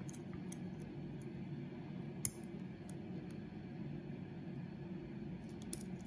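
Faint small clicks of a hook pick working the pin stack of a large Ace padlock held under tension, with one sharper tick about two seconds in and a few more near the end, over a steady low hum.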